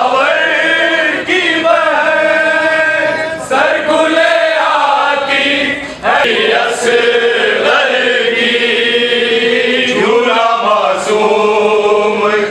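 Men's voices chanting together in unison, in long drawn-out phrases with short breaks between them.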